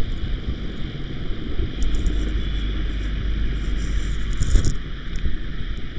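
Steady low rumble with an even hiss over it, the rumble deepening from about two seconds in until about four and a half seconds in.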